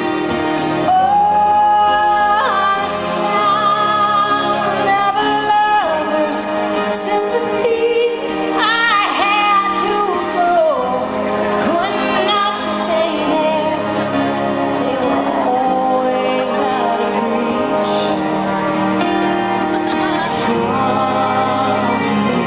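Woman singing a ballad live into a microphone, with acoustic guitar accompaniment, held notes gliding up and down over a steady backing.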